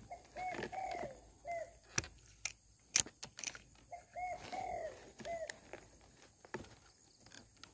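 A bird calling, a phrase of three short arched notes, heard twice about four seconds apart. Several sharp clicks stand out between the phrases, the loudest about three seconds in.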